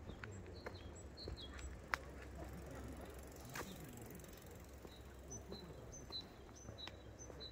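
A small bird chirping: short, high chirps, a few early on, then a regular run of about three a second in the last couple of seconds. Under it is a low, steady rumble, and there is a sharp click about two seconds in.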